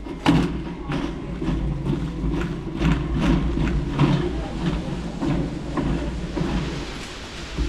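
Wire supermarket trolley being pushed along, its wheels rumbling steadily over the floor while the basket and groceries rattle with a run of clicks and knocks, one louder knock just after the start.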